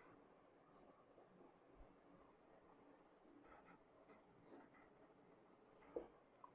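Faint strokes of a marker writing on a whiteboard, coming in short scattered spurts, with a soft knock about six seconds in.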